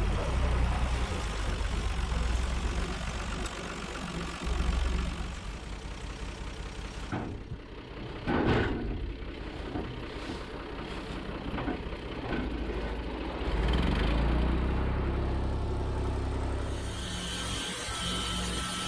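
Machinery running with a steady low rumble that drops off about seven seconds in; near the end a steady high whine starts up.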